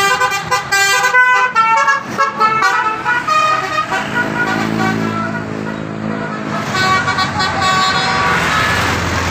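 A bus's Basuri multi-tone telolet horn playing a tune: a quick run of short, changing notes over the first three seconds, a lower held chord in the middle, then higher held notes near the end.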